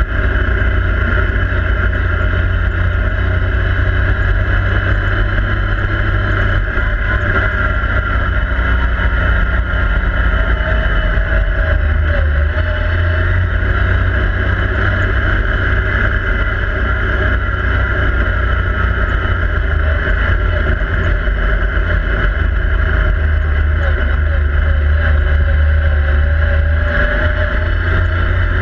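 Yamaha YXZ1000R SS side-by-side's three-cylinder engine running steadily under way, heard from inside the open cab with a heavy low rumble. The engine pitch sags and climbs a little around the middle and again near the end as the throttle changes.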